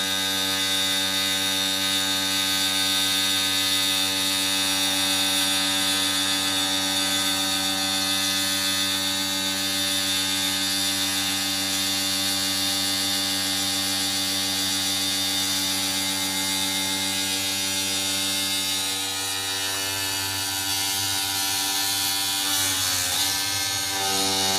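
Omni CNC router spindle running steadily with a high whine while its grinding wheel cuts along the rim of a sink. Near the end the pitch briefly sags, then recovers.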